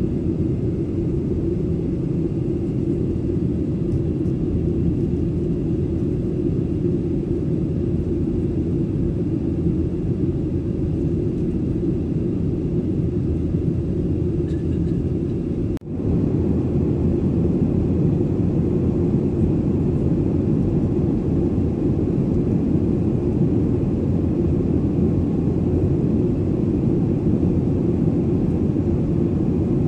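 Steady, low cabin noise of a Boeing 737-900ER in flight, heard inside the cabin: the drone of its CFM56-7B engines and the rush of air past the fuselage. It cuts out for a split second about halfway through.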